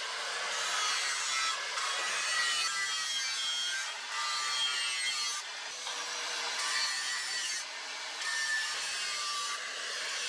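Angle grinder with a flap disc grinding the steel edge of a cleaver blade made from a leaf spring: a steady abrasive grinding hiss with a faint wavering whine, shifting slightly every second or two.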